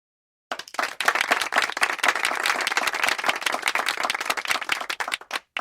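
A small group clapping, starting about half a second in and stopping just before the end.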